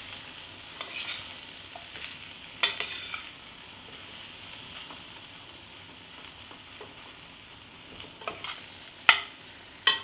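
Spiced potato slices frying with a soft, steady sizzle in a pan while a spatula stirs them. The spatula clicks and scrapes against the pan a few times, most sharply near the end.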